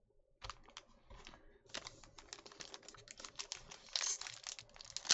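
Foil trading-card pack wrapper crinkling and crackling as it is handled and opened. It starts as a few scattered clicks and thickens into steady dense crinkling, loudest near the end.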